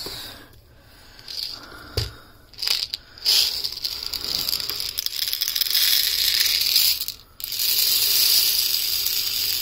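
Dried popcorn kernels pouring from a plastic jar into a plastic measuring cup: a continuous dense rattle of many small hard kernels, breaking off briefly about seven seconds in before pouring on. It is preceded by a few scattered knocks and a thud of handling the jar.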